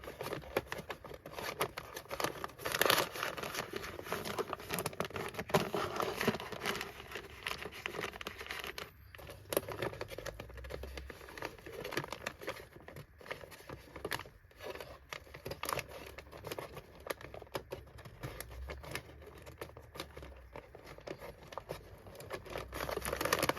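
Disposable microfiltration vacuum bag crinkling and rustling as it is handled: pushed onto the inlet and pressed into the vacuum's bag chamber, with many small irregular crackles throughout.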